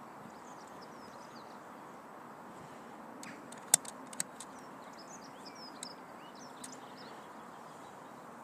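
Birds chirping over a steady background hum of distant environmental noise, with a sharp click a little under four seconds in and a second, weaker one about half a second later.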